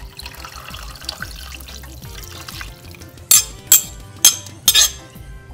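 Chicken broth pouring from a glass measuring cup into a pot of beans and tomatoes, a steady splashing; then four sharp clinks against the pot in quick succession, a little past three seconds in.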